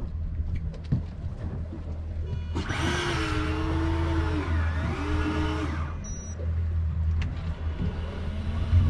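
Boat's twin outboard engines (Mercury Verado V8s) idling with a steady low hum. From about a third of the way in, a louder, higher motor whine rises, dips once and cuts off about three seconds later.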